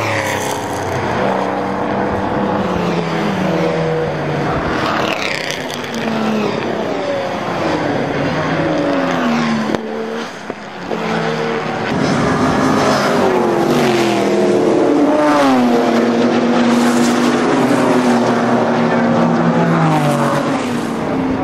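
Racing cars' engines as several cars pass one after another, the pitch falling as each goes by and rising again as they rev and accelerate away, with a short dip about halfway.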